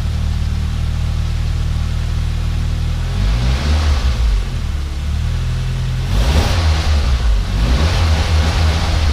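Nissan GA16DE 1.6-litre four-cylinder engine, newly turbocharged, idling steadily and then revved twice, about three seconds in and again about six seconds in, on its first start after the turbo install, running with the intercooler pipe coupler off.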